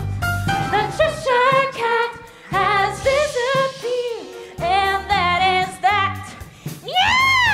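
Show-tune music from a stage musical: singers over a band with drums and a steady bass. Near the end comes a high swoop that rises and falls.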